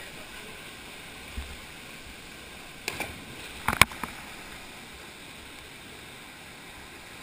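Steady rush of a small waterfall pouring into a pool and water moving around a swimmer, with a few sharp knocks and splashes in the middle, the loudest about four seconds in.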